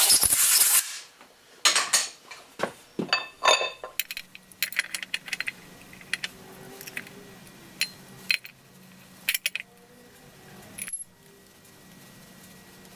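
A short blast of compressed air from a blow gun clearing chips out of a dividing head's bore, then a run of metal clinks, taps and a few ringing knocks as a steel index plate is fitted back onto the dividing head.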